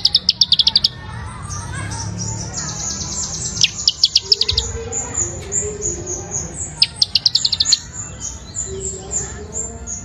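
A caged perenjak pieng, a small prinia-type songbird, singing: fast rattling trills of sharp notes, each about a second long, alternating with runs of thin, very high chirps.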